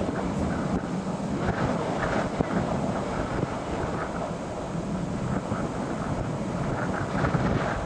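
Storm wind rushing and buffeting the microphone: a steady low rumbling noise with no distinct strikes or tones.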